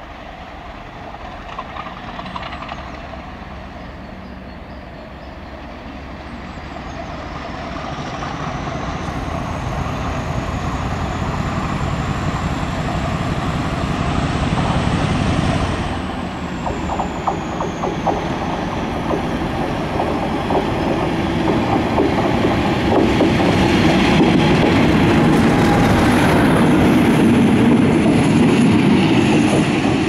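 Two British Rail diesel locomotives, a Class 50 'Hoover' leading a Class 56 'Grid', running light engine. The engines build steadily as they approach, with a high whine climbing slowly in pitch and then falling away. After a break, the pair run past louder, with a deep engine drone and rail noise as they pass and go away.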